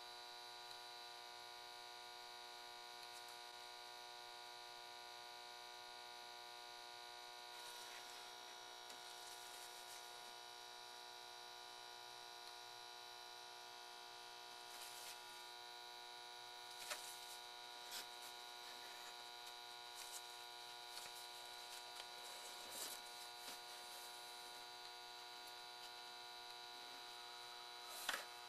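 Faint steady electrical hum with a high whine through it, and a few faint light taps in the second half as the soldering iron and solder wire touch the circuit board's pins.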